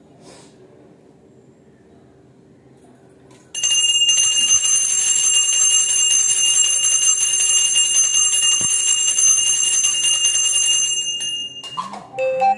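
Brass puja hand bell (ghanta) rung continuously for about seven seconds during the arati, starting about three and a half seconds in and stopping shortly before the end.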